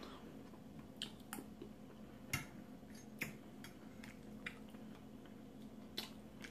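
Quiet eating sounds: a fork clicking against a plate and soft chewing, heard as a handful of scattered light clicks over a faint steady low hum.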